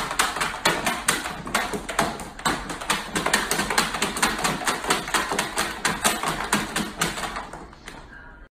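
A puppy's paws paddling and slapping at shallow water in a plastic storage bin: a quick, even patter of splashes about four to five a second, dying away near the end.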